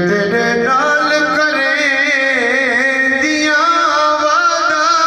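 A male reciter singing a noha, a Shia lament: long held notes whose pitch wavers and turns, one voice with no beat.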